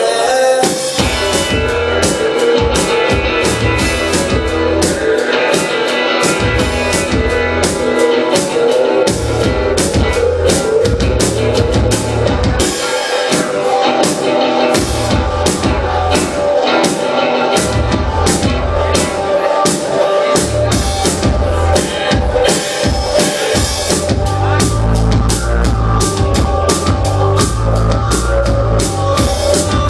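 Live rock band playing at full volume: a steady drum-kit beat with guitar over a heavy low end.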